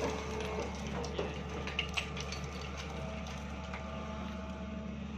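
Excavator engine running steadily while the bucket scrapes and knocks against broken rock, with several sharp clacks of stone in the first two seconds.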